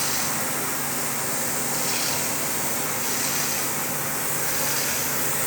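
Steady hissing noise over a constant low machine hum, with no breaks or impacts.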